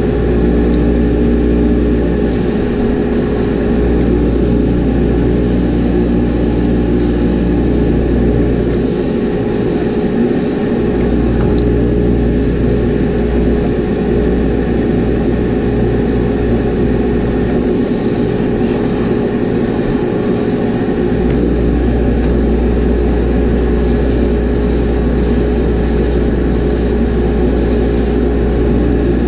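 Steady hum of a spray booth's exhaust fan, with repeated short hisses of an airbrush spraying paint onto a fishing lure, the bursts a second or two long and a few seconds apart.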